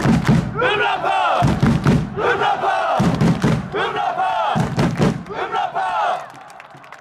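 A section of football supporters chanting in unison, in short shouted phrases repeated about every one and a half seconds, each phrase marked by a bass drum beat. The chant stops about six seconds in.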